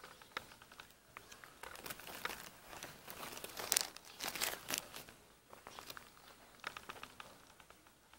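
Close crinkling and rustling with many small irregular clicks, loudest in the middle and thinning out near the end.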